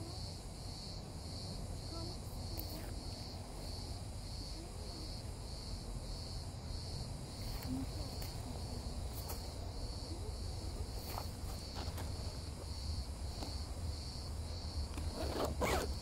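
Crickets chirping steadily, about two chirps a second, over a low rumble. Near the end comes a brief, loud rasp as the nylon tent fabric is handled.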